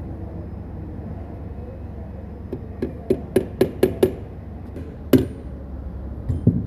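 Hammer tapping metal on the gear-shift mechanism of a Tata Winger gearbox. A quick run of about seven sharp taps comes about two and a half seconds in, followed by one harder blow and two lighter taps near the end.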